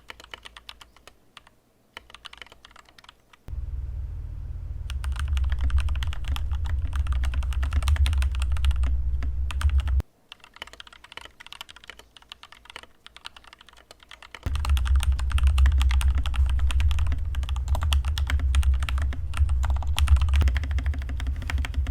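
Typing on a DIY mechanical keyboard: rapid key clicks, sparse for the first few seconds, then two long fast stretches with a quieter lull between them.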